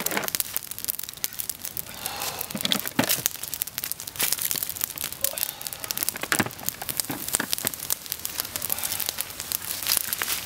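Open wood fire of dry sticks crackling and popping in quick, irregular snaps, with snails on bamboo skewers roasting in the flames.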